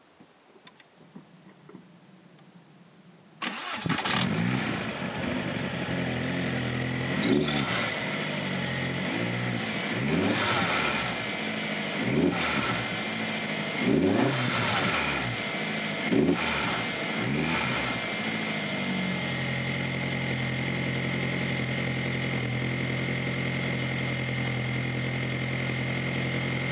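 VW 1.8-litre turbocharged four-cylinder engine with a straight-pipe exhaust starting up about three and a half seconds in, revved about five times, then settling to a steady idle. A new diverter valve has just been fitted, and the engine sounds a lot better.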